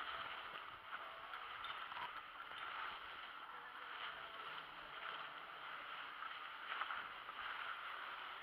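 Skis sliding on packed snow while being towed uphill by a drag lift: a steady scraping hiss with a few small clicks and knocks.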